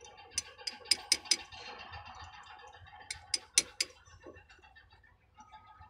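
Sharp metal taps of a hand tool seating a new oil seal evenly into a truck's steering gear box housing: a quick run of about four taps in the first second and a half, then three more about three seconds in.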